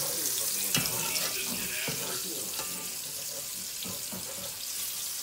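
Shrimp frying in a deep fryer: a steady sizzling hiss that eases slightly toward the end.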